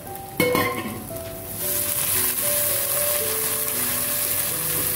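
Ginger, garlic and green chilli paste frying in hot oil with browned onions in a pot, stirred with a spatula: after a knock near the start, a loud sizzle sets in about a second and a half in and holds steady. Soft background music with a simple melody plays underneath.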